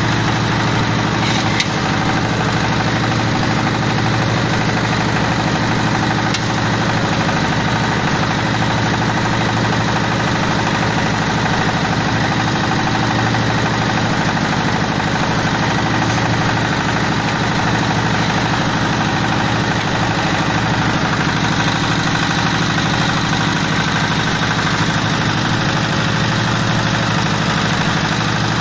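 Fish-feed pellet machine running steadily: an engine-driven drone at a constant speed with a fast, even chatter.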